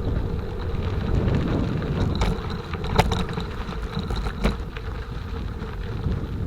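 Wind buffeting the microphone on a moving bicycle, a steady low rumble, with a few sharp clicks about two, three and four and a half seconds in.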